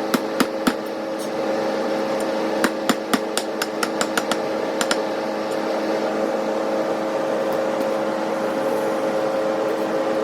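A machine running with a steady, loud hum, and a quick series of sharp knocks or taps during the first five seconds.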